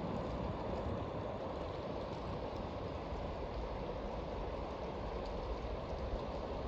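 Steady rush of fast-moving river water as the incoming tidal bore runs through and forms rapids.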